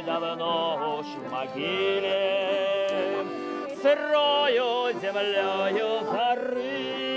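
Button accordion playing, with a man singing along to it.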